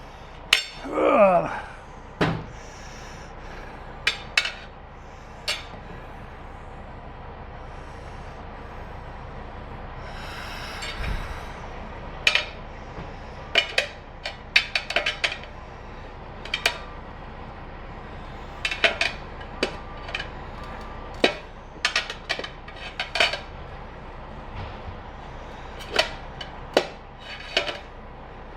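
Metal tire-changing tools clinking and clanking in short, irregular knocks spread through, with a brief falling squeak about a second in.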